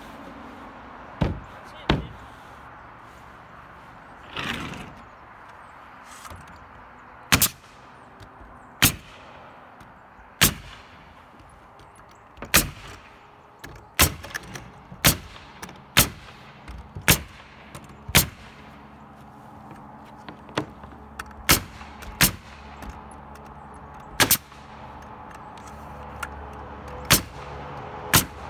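Pneumatic nail gun shooting nails through OSB roof sheathing into the rafters: about twenty sharp shots, roughly one a second, some in quick pairs.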